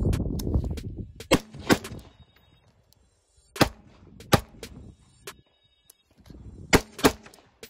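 1911 pistol firing six shots in three quick pairs, with about two seconds between pairs. Each shot leaves a short echo.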